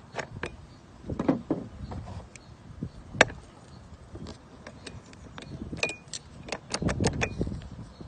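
Steel tools (a flat tool, then needle-nose pliers) clicking, scraping and clinking against the metal parts inside a cut-away Kwikset key-in-knob lock. The clicks are irregular, with the sharpest one about three seconds in and a quick cluster near the end, a few of them ringing briefly.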